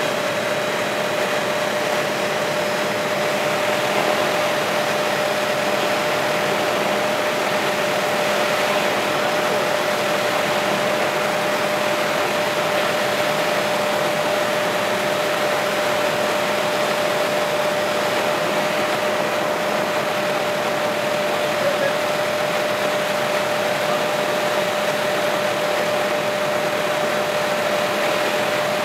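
Helicopter in flight heard from inside the cabin: a steady rush of engine and rotor noise with a constant whine running through it.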